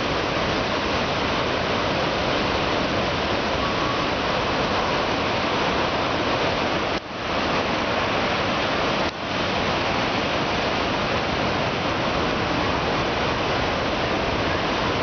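Ocean surf breaking on a rocky shore: a steady, dense rushing of waves with no let-up. The sound drops out briefly twice, about seven and nine seconds in.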